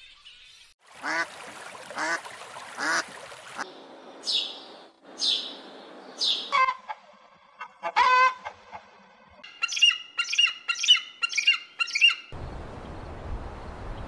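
A run of harsh animal calls in short cut-together clips. First come three honking squawks, then a few quick falling squeaks, then a fast run of chattering calls. A low rumble starts near the end.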